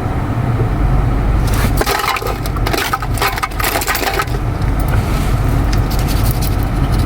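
Steady low rumble of a car's road noise, with bursts of rough crackling noise through the middle.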